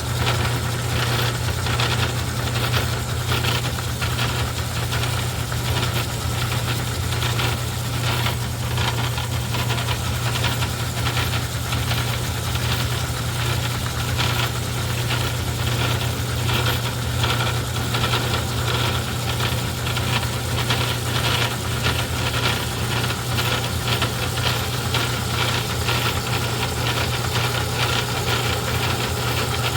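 Craftsman 109 metal lathe running under its electric motor: a steady hum with a regular clicking rattle a few times a second.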